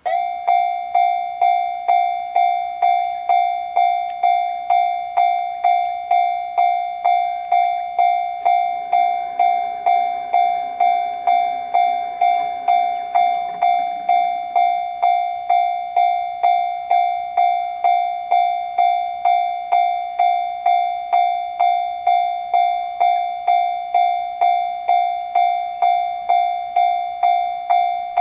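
Japanese level-crossing warning alarm (the electronic 'kan-kan' bell) starting abruptly and ringing in a steady, even beat of about two strikes a second. A fainter, lower hum rises and fades in the middle.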